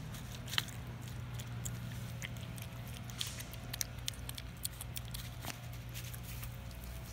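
Mini pig chewing and smacking on watermelon: irregular wet clicks and munching, one sharper click about half a second in, over a steady low hum.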